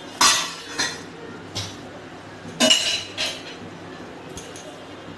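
Stainless steel kitchenware clinking: the lid and plates of a steel tiffin box knocking together in a few separate light metallic clinks, the strongest about two and a half seconds in ringing briefly.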